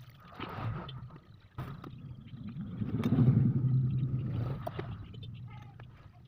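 A motor vehicle's engine swells up and fades away over about two seconds in the middle, over scattered light clicks.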